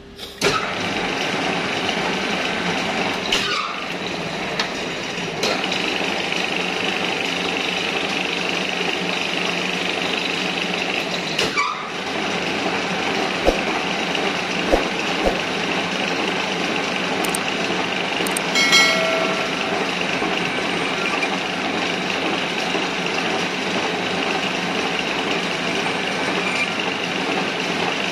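Metal lathe starting up about half a second in and then running steadily, its chuck spinning a pipe clamped for thread cutting. A few light clicks and a short metallic ring come partway through.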